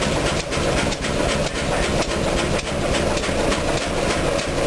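1924 Chicago Pneumatic 50 hp horizontal diesel engine running, with a steady rhythmic clatter of regular knocks over its continuous din.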